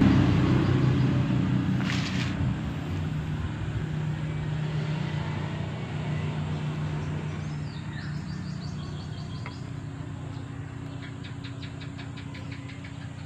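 A motor vehicle engine running steadily nearby, its low hum slowly fading away.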